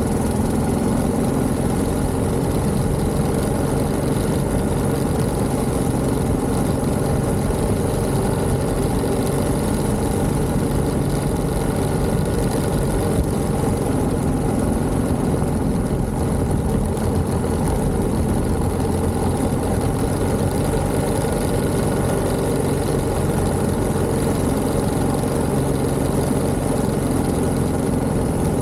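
1929 Méray motorcycle's JAP 600 engine running steadily, its pitch shifting slightly with small changes in engine speed.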